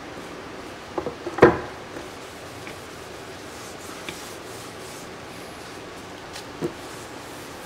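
A hexagonal resin-coated painting panel knocking against the work table as it is set down, a few knocks with the loudest about a second and a half in, followed by faint rubbing of a paper towel wiping its edge and one lighter knock near the end.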